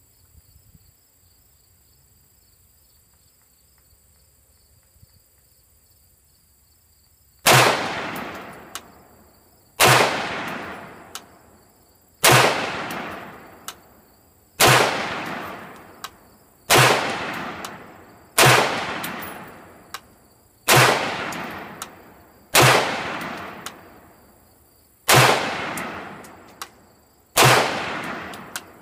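Ten single rifle shots from a Colt M4 carbine in 5.56 mm, fired one at a time about two seconds apart, each followed by a long echoing decay. Crickets chirp steadily before the first shot, which comes about seven seconds in.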